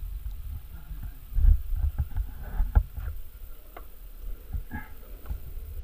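Wheels of a lie-down downhill board rolling fast on asphalt: a low, uneven rumble with wind buffeting the microphone, and a few short knocks.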